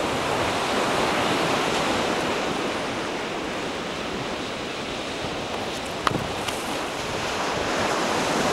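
Ocean surf washing steadily onto a beach, with some wind on the microphone. A single sharp click about six seconds in.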